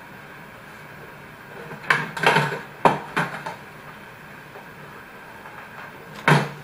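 Puppets and props being handled as one hand puppet is set down and another picked up: a short run of knocks and rattles about two seconds in, then a louder single thump near the end.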